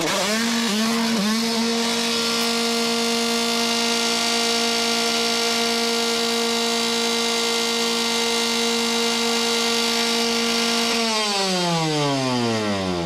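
An engine revving: three quick throttle blips, then held at high revs at one steady pitch for about nine seconds, then the revs wind down in a steady falling whine near the end.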